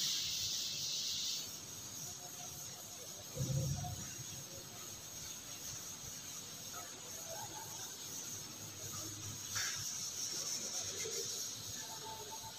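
Faint rubbing of a chalkboard duster being wiped across the board, with a dull thump about three and a half seconds in and a short click near ten seconds.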